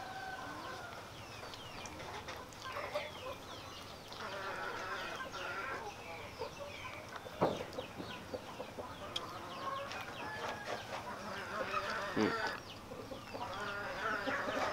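Birds calling, clucking and chirping briefly, with one sharp click about seven and a half seconds in.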